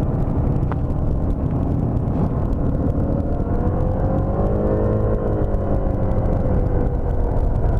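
Motor scooter under way: a steady low engine and road rumble. Around the middle an engine note rises and then falls away.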